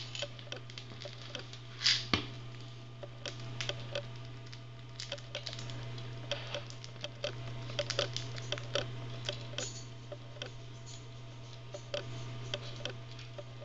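Teddy bear (long-haired Syrian) hamster eating from a pile of seed mix: quick, irregular little clicks and crunches of seeds being cracked and chewed and the mix being picked through, with a sharper crack about two seconds in.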